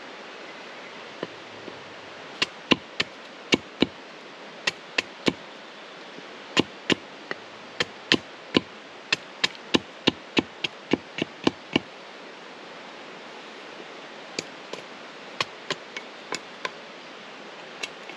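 A tent peg being hammered into the ground: a long run of sharp knocks, a few a second, then a short pause and a handful more near the end.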